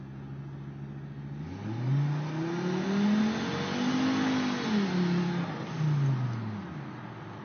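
Turbocharged five-cylinder pickup truck engine, heard from inside the cab, revving up under hard acceleration for about two and a half seconds, then the revs falling back to a steady cruise as the throttle eases off.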